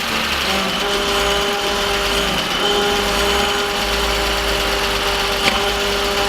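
BMW M52TU 2.8-litre straight-six idling steadily, just after its first start following an engine swap. There is one short click about five and a half seconds in.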